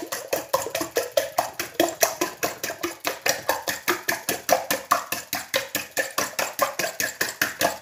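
Fork beating raw eggs in a bowl, clicking against the bowl about six times a second in a steady rhythm.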